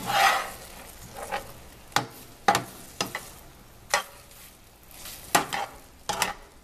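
Metal slotted spatula scraping and clicking against a nonstick frying pan as chicken pieces are turned, about ten sharp strokes at irregular intervals, over a light sizzle of the chicken frying in sauce.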